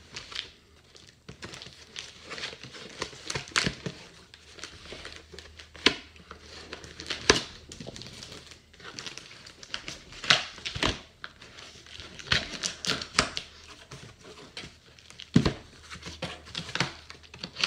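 A knife slitting packing tape on a cardboard box, with irregular sharp rasps and crackles as the tape tears. Near the end the cardboard flaps are pulled open.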